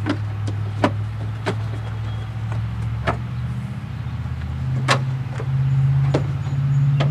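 A steady low engine drone, which grows louder and higher from about five seconds in. Over it come light sharp metal clicks and taps as a car's hood prop rod is unhooked and the hood is lowered.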